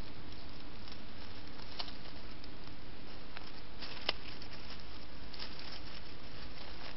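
Steady hiss from the trail camera's microphone, with a few faint clicks and rustles of dry leaf litter as a mustelid noses through it; the sharpest click comes about four seconds in.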